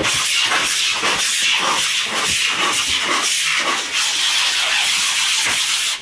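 Packing tape being pulled rapidly off its roll as it is wound round and round a foam box: a continuous high ripping hiss with a faint uneven pulsing.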